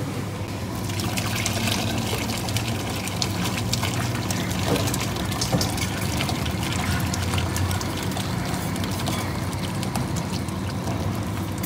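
Thick hot curry gravy being poured into a stainless-steel tray of curry, with a steady splashing that starts about a second in.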